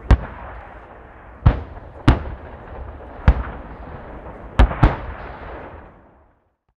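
Distant cannon fire from an MLI-84M infantry fighting vehicle: about six single sharp reports at uneven intervals, two of them close together, each trailing off in a rolling rumble across the range. The sound cuts off near the end.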